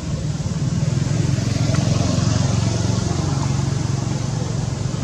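A motor vehicle engine running nearby, growing louder about a second in and easing off toward the end, like a vehicle passing by.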